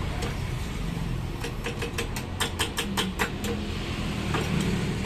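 A run of a dozen or so sharp metal clicks, about five or six a second, starting about a second and a half in, with a few more near the end: a mechanic's hand tools working on a scooter's engine mounts. A steady low rumble of traffic runs underneath.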